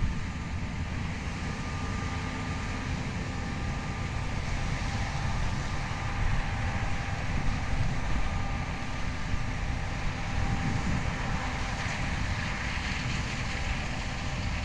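Combine harvester running steadily while harvesting corn: a continuous low rumble with a faint steady whine above it.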